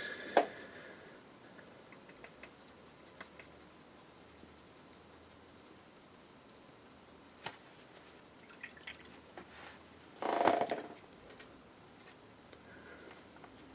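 Faint small clicks and wet dabbing of a fine paintbrush mixing acrylic paint on a wet palette, with one short, louder rustling scrape about ten seconds in.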